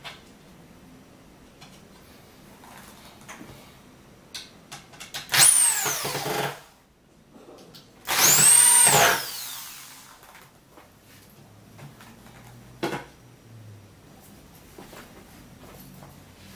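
Corded electric drill run in two short bursts, about two seconds apart, its motor whining up to speed and winding down each time. Light handling clicks and one sharp knock follow.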